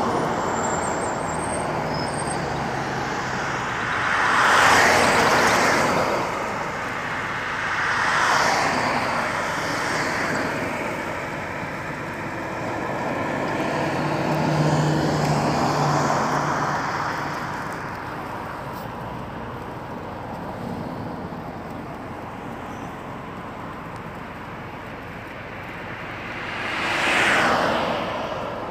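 Road traffic: vehicles passing one after another, each one swelling up and fading away over a steady background rush. The loudest pass comes about five seconds in, and another comes near the end.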